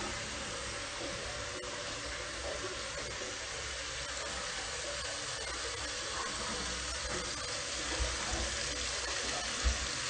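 Tap water running steadily into the small ceramic basin of a combined sink-and-toilet and splashing down its drain, which feeds the toilet cistern. A couple of soft bumps come near the end.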